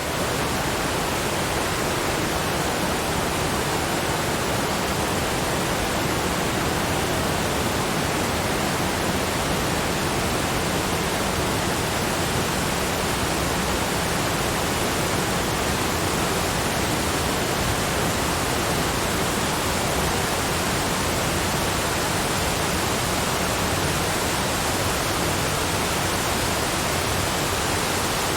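Waterfall: water pouring in a steady, even rush that does not change.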